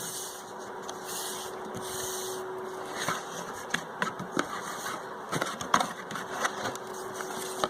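Packaging being handled: scattered clicks, knocks and scraping, starting about three seconds in, over a faint steady hum.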